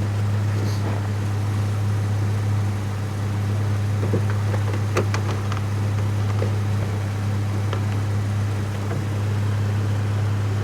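Vehicle engine running with a steady low drone, with a few faint clicks about halfway through.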